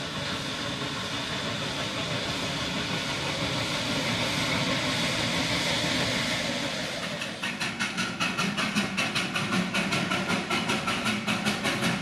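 Narrow-gauge steam locomotive hissing steam, a steady hiss that grows louder. About seven seconds in, a Darjeeling Himalayan Railway steam locomotive working hard uphill takes over, its exhaust beating in rapid, even chuffs about four a second.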